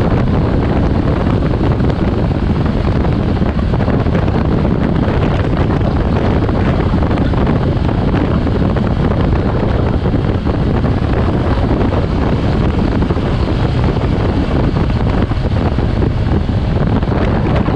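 Loud, even rumble of wind on the microphone of a motorcycle riding at speed, with the engine mixed in underneath.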